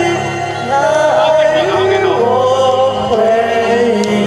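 A man singing a slow Mandarin pop love song over a karaoke backing track, with long held notes.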